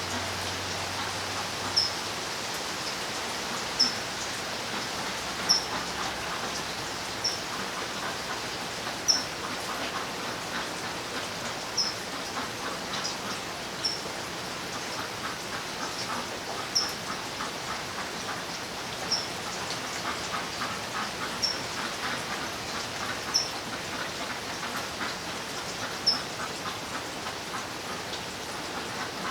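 Steady rain with drops pattering, and a short high-pitched chirp or drip sounding about every two seconds over it.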